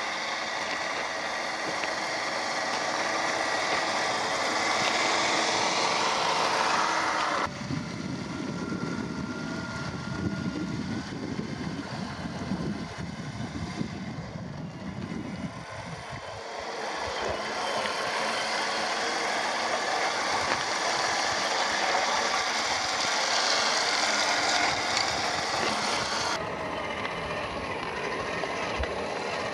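Electric RC rock crawler (Traxxas TRX-4 with a 550 21-turn brushed motor) driving, its motor and geared drivetrain whining and grinding as it crawls. The sound changes abruptly twice: about seven seconds in and near the end.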